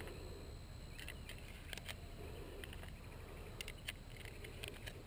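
Faint, scattered metallic clicks and rattles of 9 mm cartridges being loaded into a Magpul PMAG 17 GL9 polymer pistol magazine, a cluster about a second in and more around four seconds, over a low steady rumble.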